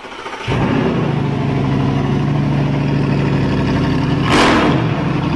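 A Peugeot 807 with a 2.0 HDi diesel being cranked on the starter, with a steady whirr; the car has an intermittent no-start fault. About four seconds in there is a louder rush of noise as the pitch bends upward.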